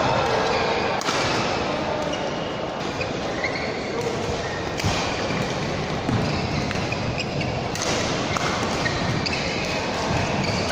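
Men's doubles badminton rally: rackets striking the shuttlecock with sharp cracks about every one to two seconds, echoing in a large sports hall.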